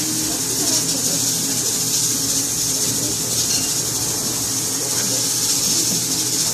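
Restaurant kitchen ambience: a steady hiss from the gas stoves and ventilation, with faint indistinct voices underneath.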